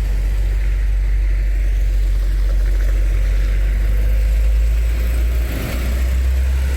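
Road traffic going round a roundabout close by: vehicle engines and tyre noise as a loud, steady low rumble, shifting a little about five and a half seconds in.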